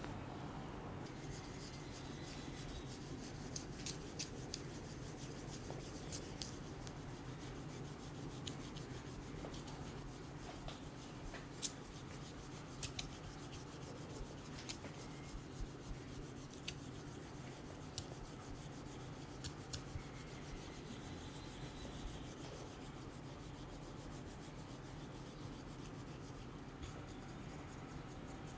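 Hands rubbing and massaging a person's skin and hair close to the microphone: a steady scratchy rubbing, with scattered sharp clicks through the middle stretch.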